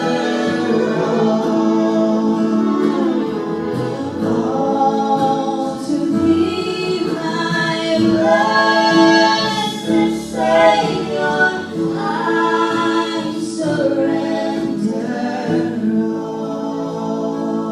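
A vocal trio singing a gospel hymn in close harmony, with long held notes.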